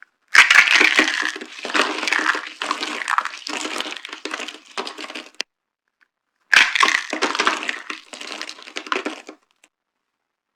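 Dry soap boxes being crushed: two long crunching bouts of many small sharp cracks as the soap breaks apart. The first lasts about five seconds, and the second starts about six seconds in.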